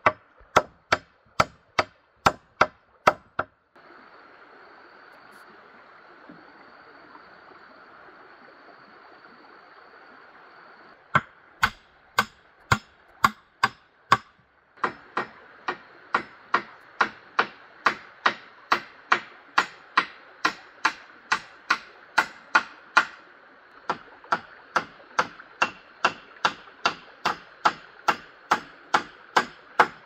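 Steady, even chopping strokes, about three a second, in runs. About four seconds in, the strokes give way to several seconds of steady running water before the chopping resumes.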